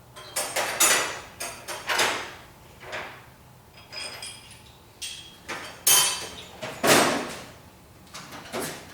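Metal hand tools clanking and clattering: sockets, extension and ratchet being handled and knocked against metal while loosening drivetrain mount bolts, in about a dozen irregular sharp knocks, the loudest about six and seven seconds in.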